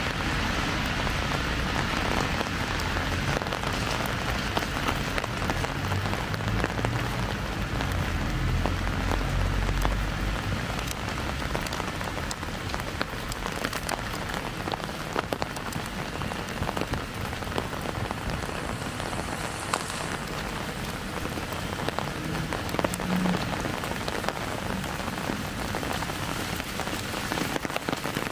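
Steady light rain, with many small drops tapping on an umbrella and the wet pavement. A low rumble of road traffic fades away in the first ten seconds or so.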